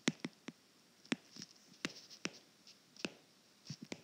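Handwriting: irregular light taps and short scratchy strokes of a pen on a writing surface, about a dozen in quick uneven succession.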